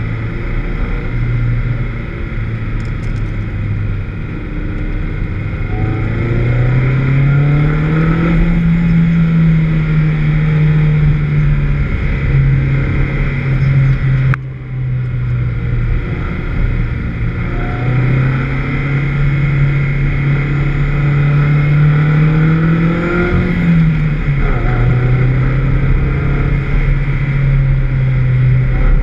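Vauxhall VX220 engine running hard on track, the revs climbing slowly, holding and dropping back twice. The engine has a misfire.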